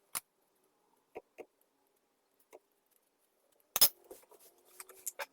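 A few separate short clicks and knocks of hands and utensils working dough in a bowl, the loudest a sharp knock past the middle, followed by a cluster of small ticks near the end.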